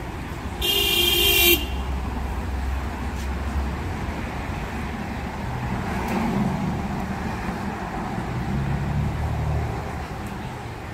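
A vehicle horn sounds once, a steady tone lasting about a second, shortly after the start. Then a steady low traffic rumble from the street.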